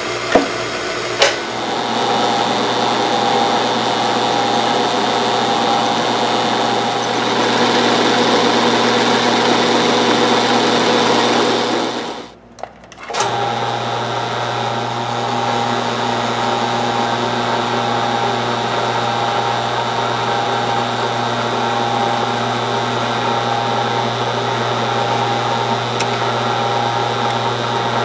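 Drill press motor running steadily, with two sharp knocks about a second in. After a brief cut-out near the middle, a milling machine's motor runs with a similar steady hum.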